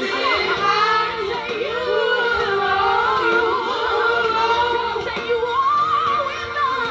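A woman singing a worship song without words caught by the transcript, drawn-out held notes with wavering runs and vibrato, amplified through a small karaoke machine's microphone and speaker.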